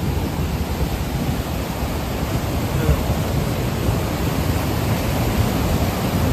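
Beas River in flood: a fast, muddy torrent rushing past close by, a loud, steady rush of water heaviest in the low end.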